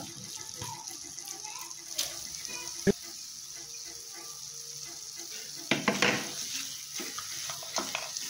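A spatula stirring and scraping oats upma around a pan over a faint steady sizzle, as the last moisture cooks off. A sharp knock about three seconds in, and louder scrapes near six and eight seconds.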